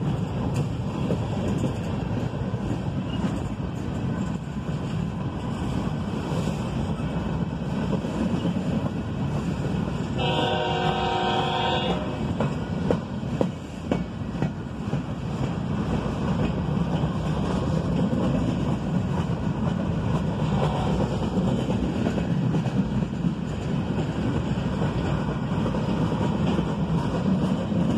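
Empty freight flat cars rolling past on the rails, a steady noise of wheels and cars throughout. About ten seconds in, a train horn sounds one short blast of several notes at once, from the train's lead locomotive up ahead.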